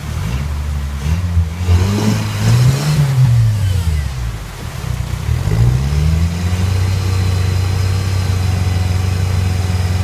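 Rock buggy's engine revving in several rising and falling swells as it works its way up a waterfall ledge, then settling into a steady held throttle about two-thirds of the way in.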